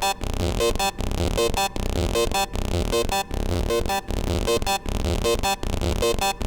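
A hard techno loop: a distorted schranz kick under a short, repeating sequence of bright, distorted synth notes from Serum 2. The synth is high-passed so it carries no sub-bass. The pattern repeats evenly with a brief gap about every 0.8 seconds.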